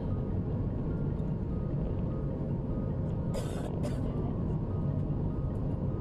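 Steady low rumble of cabin noise aboard a Boeing 737 MAX airliner, with two brief hisses a little past halfway.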